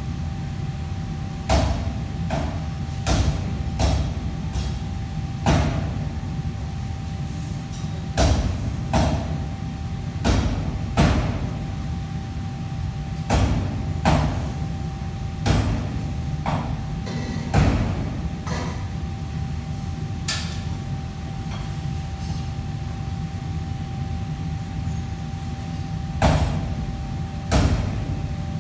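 Knocks and clatters of cookware and utensils being handled at a kitchen counter, coming irregularly about one every second or two, over a steady low hum with a faint steady tone.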